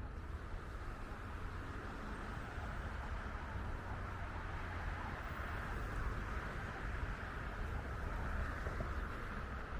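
Steady city street ambience: a low traffic rumble with a constant hiss, no distinct sounds standing out.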